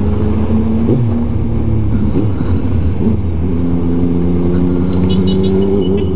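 Suzuki Bandit 1250's inline-four engine running at low, steady revs while the bike rolls slowly through traffic, with brief changes in pitch in the first half. Wind rumble is on the microphone.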